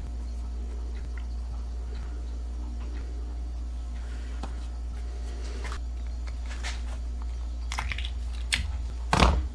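A block of ballistic gel being pressed and pulled apart by hand, with scattered soft handling noises that grow busier in the last few seconds; the loudest comes just before the end. A steady low hum runs underneath.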